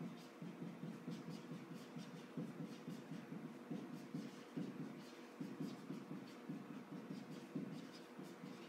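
Felt-tip marker writing on a whiteboard: an uneven run of short, quick scratchy strokes as a line of text is written out.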